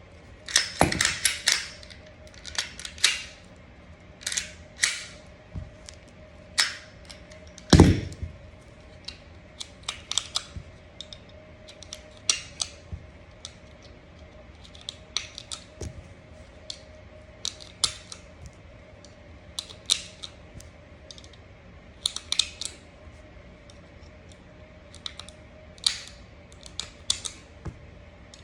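Irregular metallic clicks, scrapes and taps from a Smith & Wesson M&P 9mm pistol and its parts being handled during cleaning, with one heavier knock about eight seconds in. A faint steady hum sits underneath.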